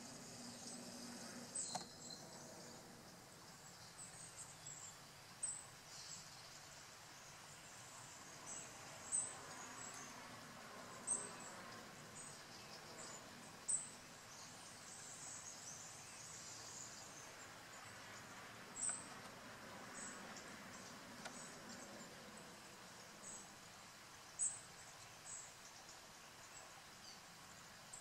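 Quiet outdoor ambience with short, high chirps recurring irregularly every one to three seconds.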